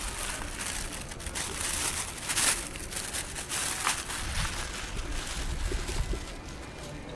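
Thin plastic bag crinkling and rustling as a hand opens and handles it, in irregular crackles with a sharper one about two and a half seconds in, over a low rumble.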